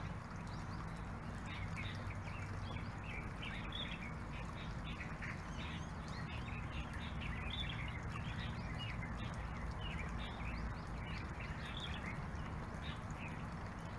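Birds chirping, with many short calls coming thick and fast, over a steady low hum.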